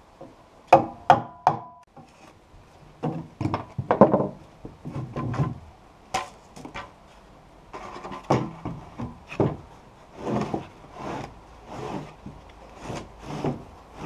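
Hammer striking a wood chisel to notch a floorboard: three sharp, ringing blows about a second in, then more knocks over the next few seconds. From about halfway through, the board scrapes and rubs against the other floorboards, wood on wood, in a steady series of strokes.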